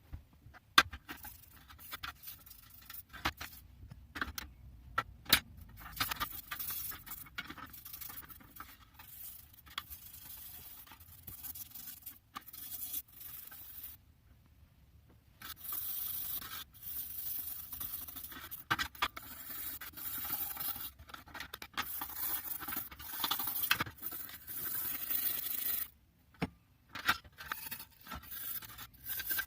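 A stiff hand brush scrubbing rust residue off small steel spanner parts in bursts of rough back-and-forth scraping, with short pauses between them. The first few seconds hold sharp clicks and knocks as the metal parts are handled.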